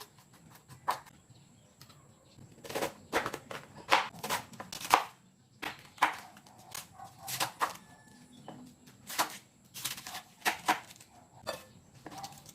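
Irregular knocks and taps of kitchen prep work, clustered in a few short runs.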